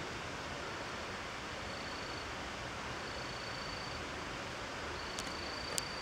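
Steady outdoor ambient hiss, with a faint high whine that comes and goes three times and two light clicks near the end.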